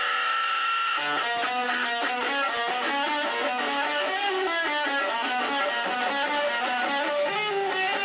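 Guitar playing a melodic line of quickly changing single notes, starting abruptly.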